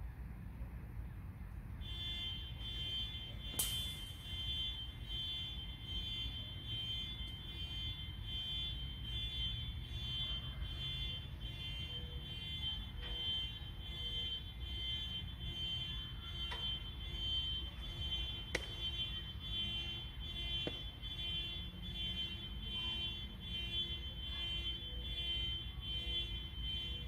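A steady, high-pitched buzzing tone starts about two seconds in and pulses about once a second, over a low wind rumble. Two sharp clicks are heard, one early and one about halfway through.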